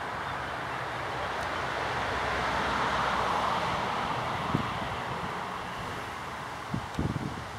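A vehicle passing by, its noise swelling to a peak about three seconds in and then fading. A few low thumps of wind on the microphone come near the end.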